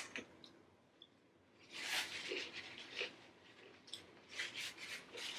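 Eating sounds at a table: chewing and bites of fried chicken tacos, with a longer noisy rustle about two seconds in and a run of light clicks near the end.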